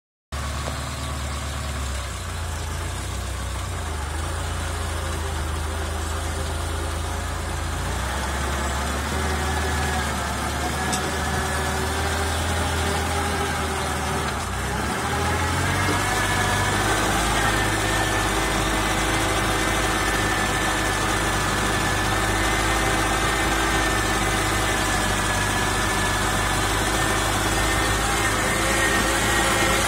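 Ride-on lawn mower's small air-cooled engine running steadily while the mower drives across the lawn. About halfway through, the engine note shifts and grows a little louder as the revs change.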